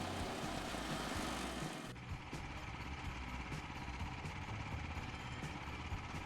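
Woodland Mills HM122 portable band sawmill running steadily. About two seconds in the sound changes abruptly: the high hiss drops away, leaving the steady engine with a faint regular ticking.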